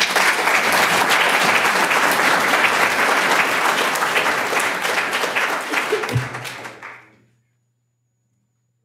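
Audience applauding, dense steady clapping that fades out about seven seconds in, leaving only a faint low hum.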